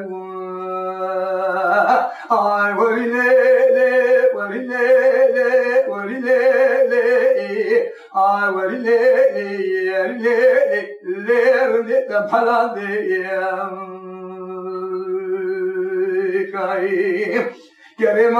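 A man singing unaccompanied in Kurdish dengbêj style: a single voice in a high register with long held, wavering notes and short breaks for breath between phrases.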